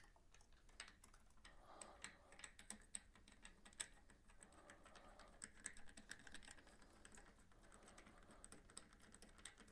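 Faint, irregular light clicks and rustling from a spark plug being fitted by hand into a motorcycle engine's cylinder head.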